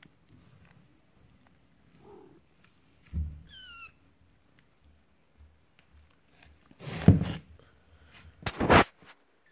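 A kitten gives one short, high, wavering mew about three and a half seconds in, just after a low thump. Near the end come two loud, brief rustling bumps, the loudest sounds.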